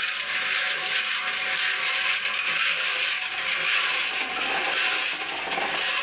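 SMW mini electric concrete mixer running, its steel drum turning a load of crushed stone and cement so that the mix tumbles and rattles steadily against the drum and its blades.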